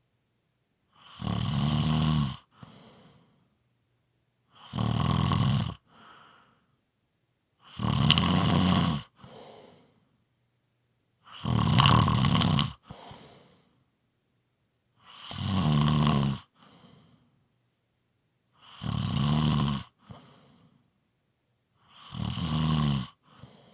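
Heavy snoring: seven strong snores about every three and a half seconds, each lasting a little over a second and followed by a short, quieter breath out.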